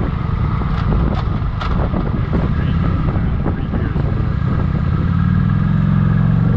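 Motorcycle engine running while the bike is ridden: an uneven low rumble that settles into a steady, even engine note about five seconds in.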